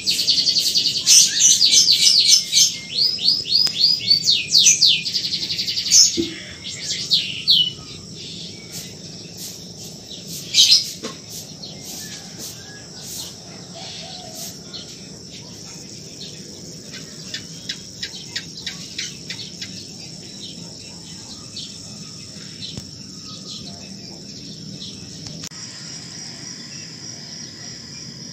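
Dawn chorus of small birds: loud, rapid runs of high repeated chirps for the first several seconds, then sparser chirping. A steady high insect drone, typical of crickets, runs underneath.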